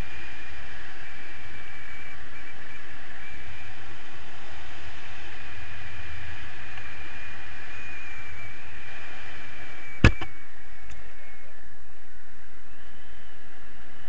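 Steady rush of air over the camera microphone in flight under a tandem paraglider, with a thin steady whistle through it. A single sharp click about ten seconds in.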